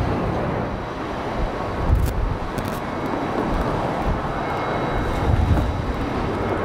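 Jet airliner engines on take-off, a steady rushing noise, with wind buffeting the microphone twice.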